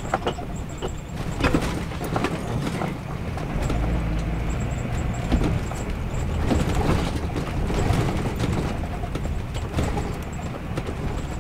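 Motorhome driving slowly over a badly potholed road, heard from inside the cab. A steady engine and road rumble runs throughout, with scattered knocks and rattles as the coach jolts through the potholes.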